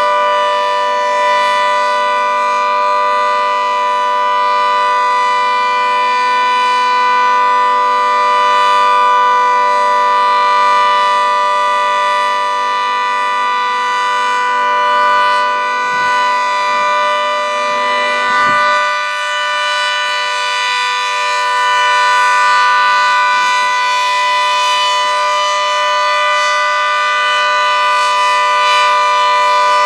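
Federal Signal 2T22 dual-tone electromechanical warning siren sounding a steady alert: a loud, held chord of two pitches with slight wavering in loudness, the tornado-drill test signal.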